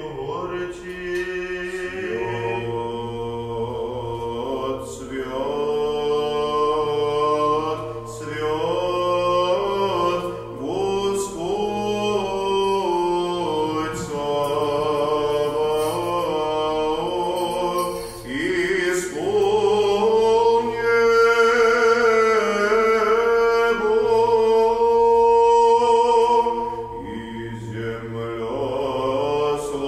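Male voices singing Byzantine liturgical chant: one voice sustains a low, steady drone (the ison) while another carries the melody above it, stepping up and down in long melismatic phrases.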